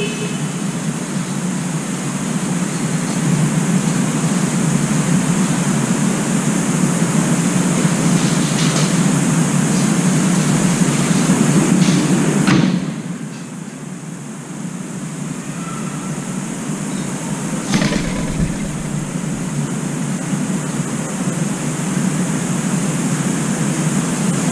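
Steady background rumble and hiss of city traffic around a high-rise apartment complex; about halfway through the hiss drops away and the sound gets quieter, and a few faint clicks and a soft thump come later.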